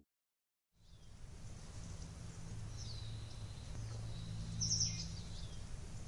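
Outdoor ambience that starts about a second in: a low steady rumble with a few short bird chirps over it, one around the middle and a louder one near the end.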